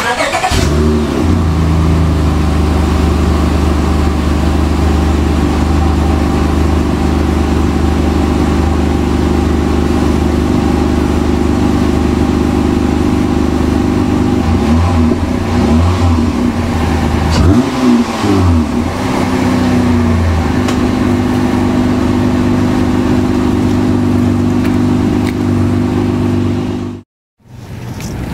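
2013 Honda Accord Coupe's 3.5-litre V6 on its stock exhaust, heard at the tailpipes. The revs fall back to a steady idle in the first second, the engine is blipped several times in quick short revs about halfway through, then it settles back to idle. The sound cuts off abruptly near the end.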